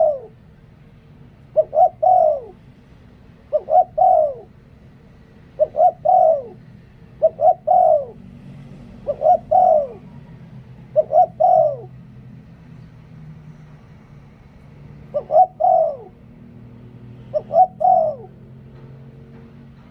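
Spotted dove cooing in repeated phrases, about one every two seconds, each a few quick notes ending in a longer falling coo, with a pause before the last two phrases.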